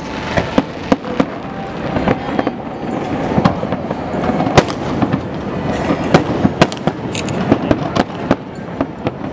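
Professional aerial firework shells bursting in irregular succession: sharp bangs, the loudest about halfway through and again a couple of seconds later, over a steady wash of noise from the ongoing display.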